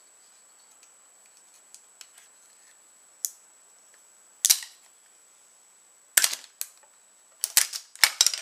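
Sharp plastic clicks and snaps from handling an Apple Magic Mouse and its packaging: a few faint ticks, a single click about three seconds in, a louder one a second later, then a quick cluster of clicks near the end.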